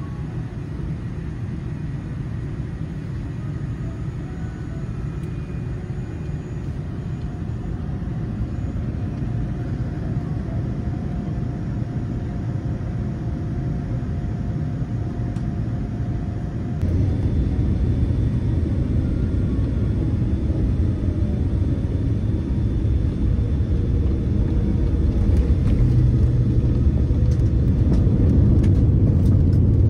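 Boeing 787-10 cabin noise heard from a window seat over the wing: a steady low rumble of airflow and engines during the descent into landing. About halfway through it steps up louder and deeper, and near the end light clicks and rattles come in as the airliner rolls onto the runway.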